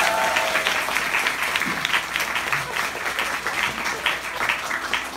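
Applause from a theatre audience and the cast on stage: many hands clapping at once, dying down near the end.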